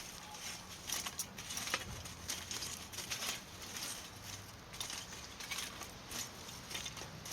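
Wood fire in a fire pit crackling, with irregular soft crackles and small clicks.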